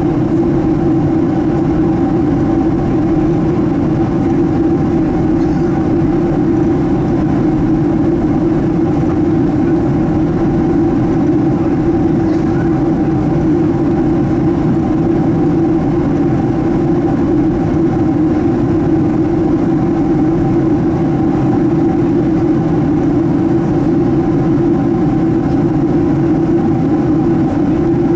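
Steady drone of a Boeing 767's GE CF6 turbofan engines heard inside the passenger cabin, a constant roar with a steady low hum running through it.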